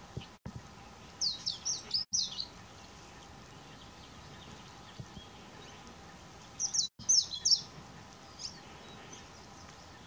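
Palila calling: two short bursts of several quick, high, downslurred notes about five seconds apart, then a single faint note.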